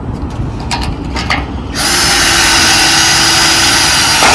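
Power drill with a 1/8 inch bit drilling through the guide hole of a pre-drilling fixture into a screen housing. It starts about two seconds in, after a few light handling clicks, and runs steadily at full speed.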